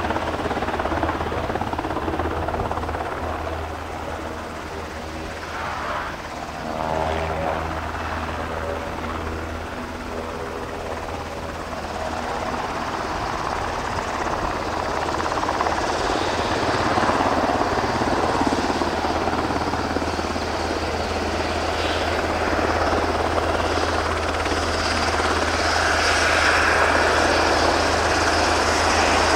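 JMSDF SH-60J Seahawk helicopter running on its twin turboshaft engines as it touches down and taxis: a steady low rotor beat under turbine whine. It grows louder and brighter toward the end as the helicopter turns toward the listener.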